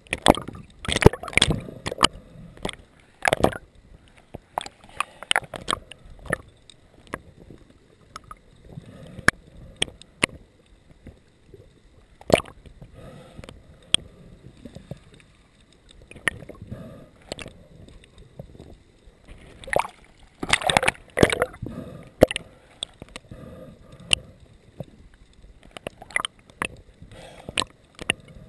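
Water sloshing and gurgling, broken by irregular knocks and bumps.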